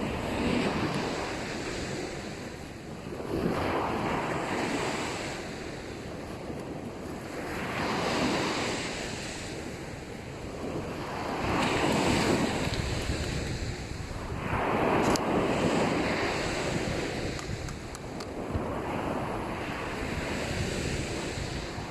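Waves breaking and washing up on a sandy beach, a surge about every four seconds, six in all, with wind buffeting the microphone underneath.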